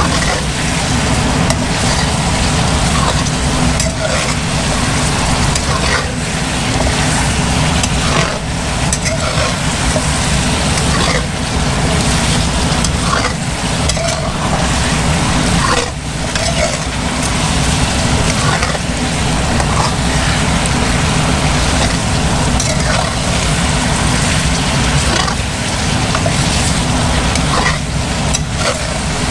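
Chicken wings sizzling in a thick, reducing honey sauce in a stainless steel wok, with a metal spatula scraping and knocking against the pan now and then. A steady low rumble runs underneath.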